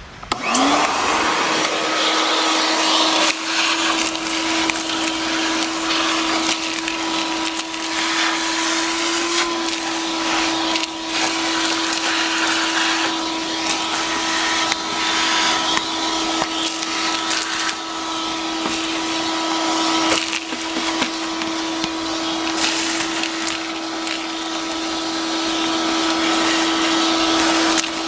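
Shop-Vac wet/dry vacuum switched on, its motor spinning up in the first second and then running steadily with a constant whine. Scattered clicks come from leaves and dirt being sucked up the hose.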